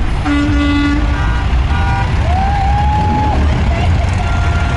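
Vehicle horns honking over the low, steady rumble of passing traffic, including a heavy crane truck: a held honk about a quarter second in, a couple of shorter honks near two seconds, then higher held tones.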